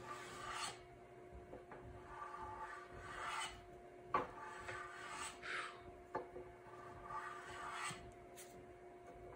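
Repeated short scraping strokes of a small hand tool cutting along the edge of a dark hardwood seat, about five strokes with pauses between them, faceting the underside bevel. A couple of sharp clicks come between strokes, the louder one near the middle.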